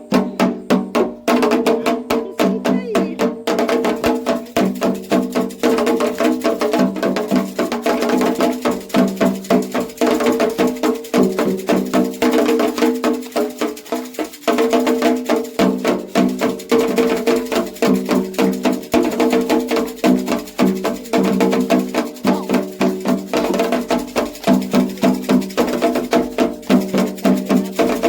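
Music with a quick, even beat of sharp percussion strokes over steady held pitched notes.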